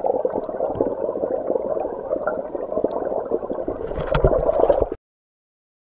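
Turbulent, bubbling water churning around a submerged GoPro Hero 3 Black, heard muffled through its waterproof housing with many small pops; it cuts off suddenly about five seconds in.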